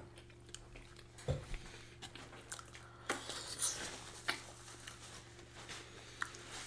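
Close-miked eating sounds: soft chewing and handling of food, with scattered small clicks and taps and a low thump about a second in.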